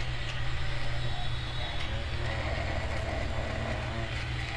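Faint scratching of a thin metal tool worked along the glued edge of a Realme Narzo 10's plastic back panel, scraping off old adhesive. Under it runs a steady low hum.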